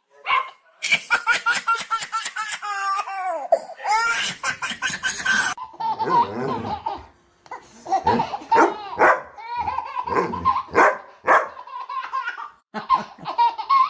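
Hearty, high-pitched laughter in quick runs of laughs, with brief pauses between bouts.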